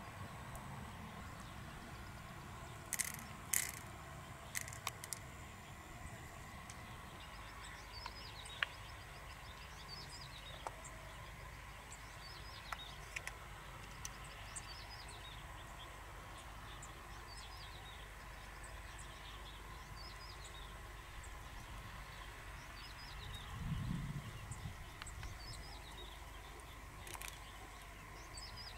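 Quiet outdoor ambience with small birds chirping repeatedly, high and short. A few sharp clicks or taps come in the first third, and one low thump comes later.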